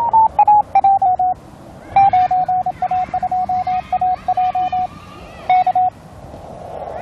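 Morse code (CW) on the 40 m amateur band received on a Tecsun PL-368 portable receiver: a beeping tone keyed in dots and dashes over band hiss. The tone's pitch steps down a little in the first second as the receiver is tuned, then the keying runs steadily until about five and a half seconds in.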